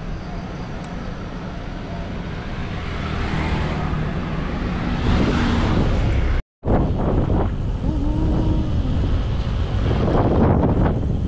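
Rushing wind and road noise on the microphone while riding a road bike, with motor traffic going by. The noise builds in the middle and cuts out completely for a moment about six and a half seconds in.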